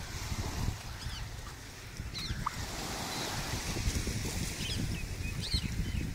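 Wind buffeting the microphone in a low rumble over the steady hiss of gentle surf, with a handful of short, high chirping calls scattered through.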